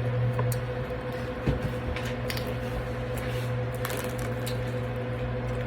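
Someone eating: soft squishy mouth sounds and scattered light clicks of a utensil in a food container, over a steady low hum.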